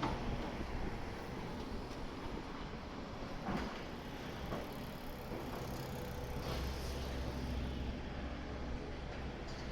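Steady low engine hum of vehicles or machinery, with a few scattered knocks.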